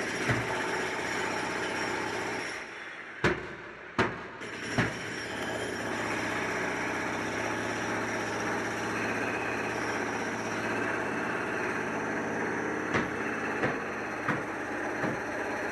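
A steady machine drone with a low hum, broken by sharp knocks: one near the start, three in a row about four seconds in, and four more evenly spaced near the end.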